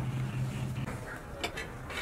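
A steady low hum that stops a little before halfway through, followed by a few sharp clicks.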